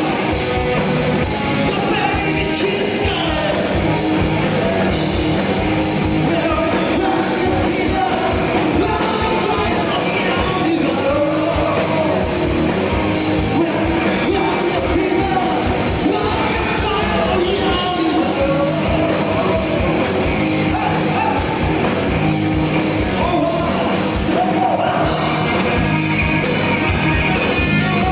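Rock band playing live, a singer's vocals over drums and band, with a steady beat and a loud, even level.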